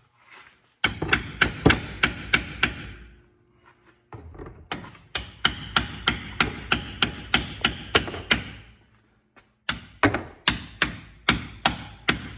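Hammer blows on a stuck part of a 1999 Ford Ranger to knock it loose: three quick runs of sharp, evenly spaced strikes, several a second, with short pauses between.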